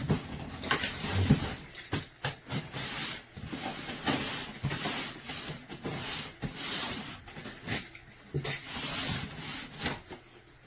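Unboxing: cardboard and plastic packaging being handled and rustled in uneven bursts, with scattered knocks and clicks.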